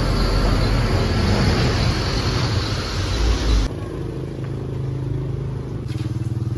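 Road traffic: a loud, rough engine noise, most likely a heavy truck close by, which cuts off abruptly a little over halfway through. It is followed by a quieter, steady engine hum.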